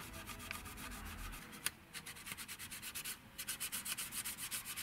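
Cloth rubbing over the painted plastic surface of a scale model aircraft in quick repeated strokes, about four or five a second, wiping back an oil wash.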